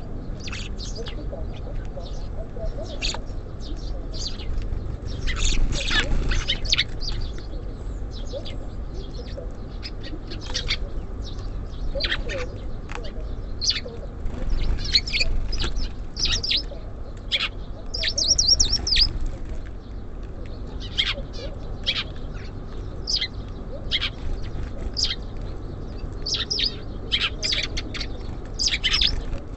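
Small songbirds at a feeder chirping in many short, high calls, with a brief rapid trill a little past the middle, over a steady low rumble.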